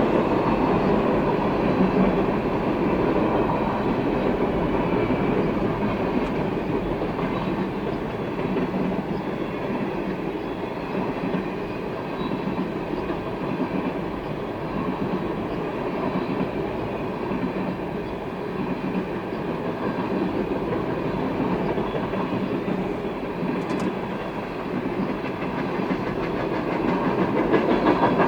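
Freight train cars rolling past, a steady rumble of steel wheels on the rails that swells slightly near the end.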